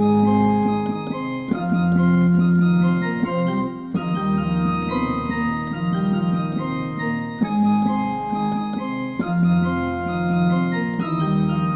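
Electronic keyboard set to an organ voice, playing a pop song as sustained chords in hockey-arena organ style; each chord holds one to three seconds before the next is struck.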